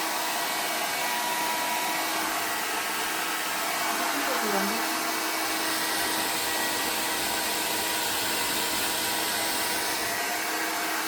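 Xiaomi H101 compact hair dryer running steadily on its high speed setting: an even rush of blown air over a constant hum.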